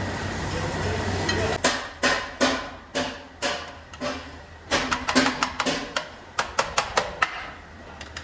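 Hand hammer striking a sheet-steel tractor seat part held in a steel jig: about six blows half a second apart, then a quicker run of about ten, each with a short metallic ring.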